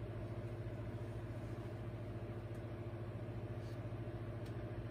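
Small 1977 Superlectric desk fan running steadily: a low electric motor hum with the whir of the spinning blades and a faint flutter, plus an occasional light tick. It rattles on its hardened rubber feet, and its bearings sound scratchy enough that the owner plans to service them.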